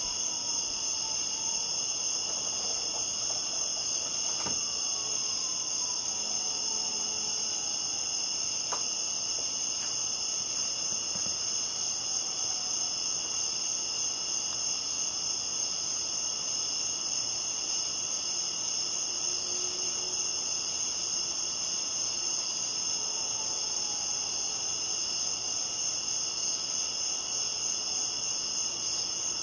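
Crickets chirping steadily in a dense night chorus, pitched high and unbroken throughout.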